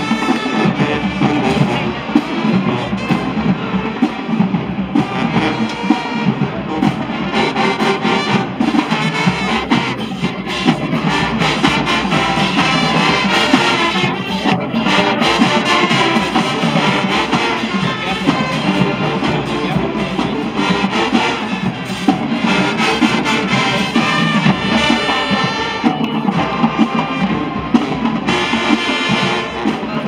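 High school marching band playing live: brass horns over a drumline with bass drums, continuous and loud.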